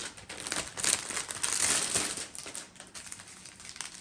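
Plastic packaging around a diamond-painting kit's bags of drills crinkling as it is handled and opened. The crinkling is loudest through the first two seconds or so, then drops to lighter rustling.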